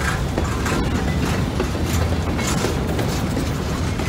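Boxcars of a freight train rolling past close by: a steady rumble of steel wheels on the rails, with irregular clacks as the wheels cross rail joints.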